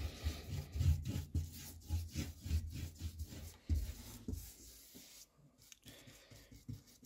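Paintbrush scrubbing acrylic paint onto cork track underlay: a quick run of rubbing strokes, about three a second, that go fainter after about four seconds.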